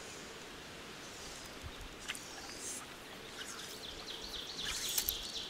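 Quiet river ambience with a songbird singing: a few chirps, then a rapid run of repeated warbling notes near the end, with a couple of faint clicks or drips from the water.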